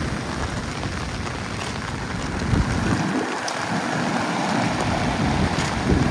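Storm at sea: strong wind buffeting the microphone over the steady rush of surf, the low buffeting easing for a second or so midway.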